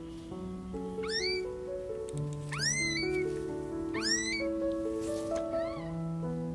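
Tiny kitten mewing for its mother: three loud, high cries that rise in pitch, about a second and a half apart, then a fainter one. Background music with soft held notes plays underneath.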